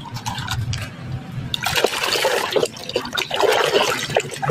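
A few light plastic clicks and knocks, then water sloshing and splashing in a tub as a plastic toy is scrubbed in it, starting about a second and a half in.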